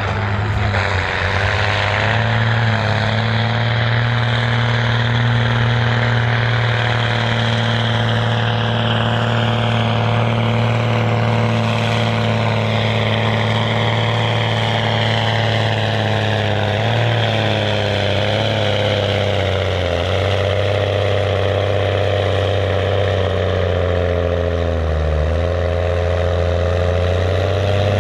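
Case IH Magnum tractor's diesel engine working hard under full load while pulling the weight sled, a steady deep drone whose engine speed sags slightly a few times in the second half.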